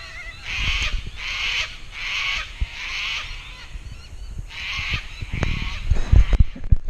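Sulphur-crested cockatoos screeching, a run of harsh calls about a second apart with a short pause midway. Low thumps come near the end.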